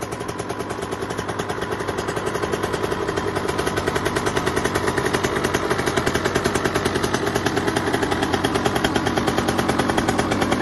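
Two-stroke motocross bike engine running, a fast, even crackle of exhaust pulses that grows louder over the first couple of seconds and then holds steady.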